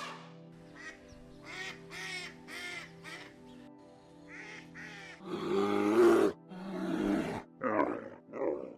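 Animal calls over background music with held tones: a run of short cries in the first few seconds, then louder, longer calls from about five seconds in.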